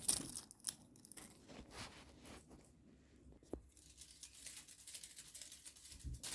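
A crinkly cat toy rustling and crackling in irregular bursts as the cats play with it.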